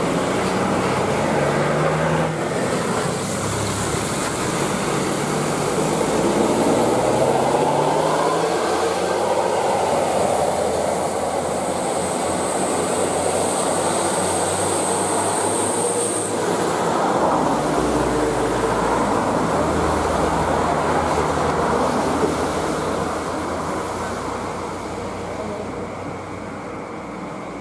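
Heavy diesel traffic going by: a BeST Premium high-deck coach pulling away, its engine note rising as it gathers speed, among passing trucks. A thin high whine sounds for a few seconds in the middle, and the noise fades near the end.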